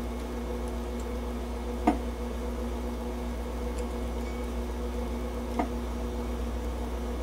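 Steady shop hum with a few held tones, and two light sharp clicks, about two seconds and five and a half seconds in, from a 4 mm tap being turned by hand into cast iron.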